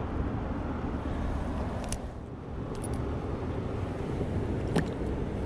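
Steady rush of river water with wind buffeting the microphone, and one short sharp click near the end.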